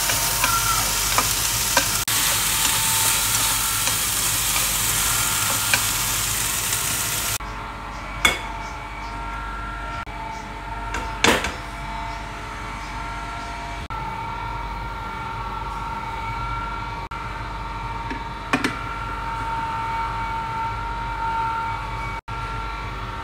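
Beef and vegetables sizzling in a stone-coated wok as they are stir-fried with chopsticks; the sizzle stops abruptly about seven seconds in. After that there is a quieter steady hum with a few sharp knocks as the food is tipped from the wok into a bowl.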